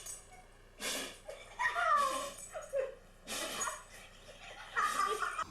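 A dog sneezing three times, a second or two apart, with whining between the sneezes.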